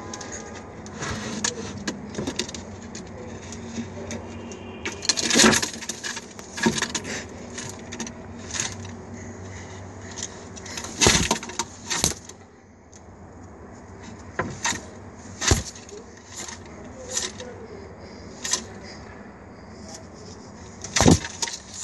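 Irregular sharp slaps and knocks, about fifteen of them, as a white pigeon strikes at a person's hand held close to it.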